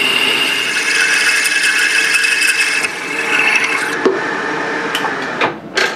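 Drill bit cutting a 7/16-inch through hole in a metal bar on a milling machine: a steady grinding with a high whine over it. The cutting stops about four seconds in as the drill breaks through and is withdrawn, and a few sharp clicks follow.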